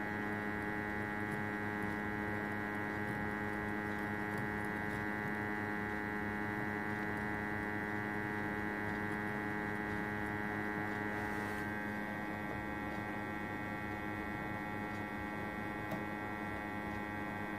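Hot-air rework station running: a steady electrical hum with many overtones, its blower heating a phone board to soften the glue under a chip. The higher overtones fade a little about twelve seconds in.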